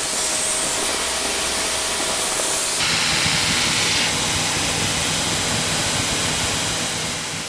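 A steady hissing rush from running workshop equipment. The noise shifts slightly at cuts about three and four seconds in, then fades out near the end.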